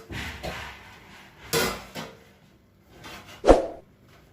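Cookware handled while a pot of simmering rice is uncovered and checked: rubbing and scraping of lid and utensil, then a single loud knock about three and a half seconds in.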